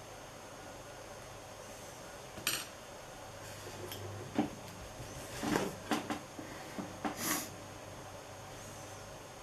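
A few light knocks, clicks and short scrapes of a paintbrush and hand working at an oil-paint palette tray, bunched in the middle, over a steady faint hiss.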